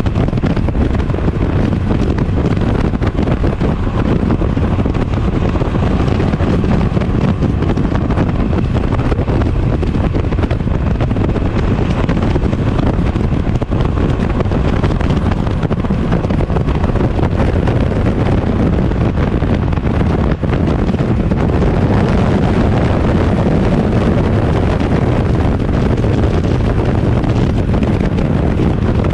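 Heavy wind buffeting the microphone at highway speed on a 1983 Honda Sabre 750 motorcycle, with its V4 engine running underneath. The noise is loud and steady throughout.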